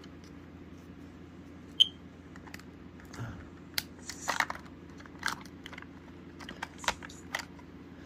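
Handling clicks and plastic scraping as a 9-volt battery is snapped onto the connector and pushed into the battery compartment of a FireX AD smoke alarm. The loudest is a single sharp click about two seconds in, followed by a run of smaller clicks and rustles.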